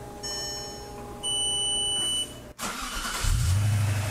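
Audi D2 S8's 4.2-litre V8 starting for the first time after a manual gearbox swap. Electronic warning beeps sound on the ignition, then a brief crank, and the engine catches about three seconds in and settles into a steady idle.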